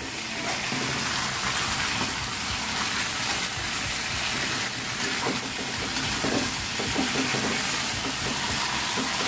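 Chicken pieces in curry spice paste sizzling in a wok as they are stir-fried, with a spatula scraping the pan now and then. The chicken is being tossed through the paste until about half cooked.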